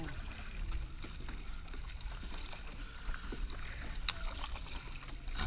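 Kayak paddling: paddle strokes and dripping water splashing against the boat, over a steady low rumble. One sharp click about four seconds in.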